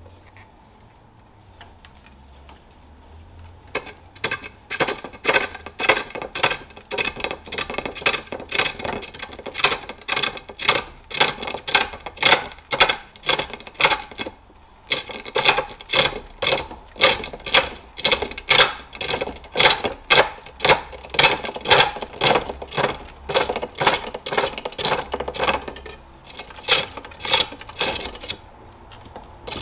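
Hook tool of O1 tool steel cutting a wooden bowl blank on a pole lathe, a rhythmic run of scraping cuts as the work spins back and forth with each treadle stroke. The cutting starts a few seconds in and pauses briefly about halfway and again near the end.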